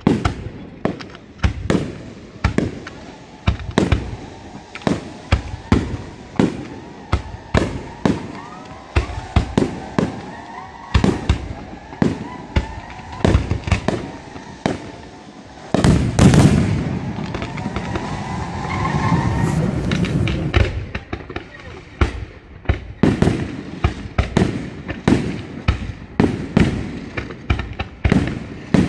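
Aerial fireworks bursting in rapid succession, about two sharp bangs a second. From just past halfway there is a denser, louder stretch of continuous bursting and crackle lasting several seconds.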